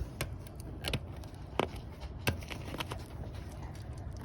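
Hands handling the iced-over refrigerant line and its insulation at a frozen heat pump, giving scattered sharp clicks and crackles, about five of them, over a steady low hum.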